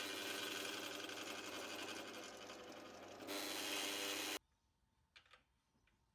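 A small power tool's motor running steadily, its note shifting about three seconds in, then switched off and cutting out abruptly a little after four seconds; a couple of faint clicks follow.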